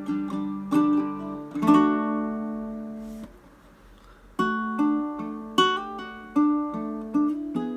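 Ortega RU5-BA baritone ukulele played solo: chords and single notes plucked and strummed. One chord is left to ring and fade, a short pause follows about three and a half seconds in, and then the playing resumes.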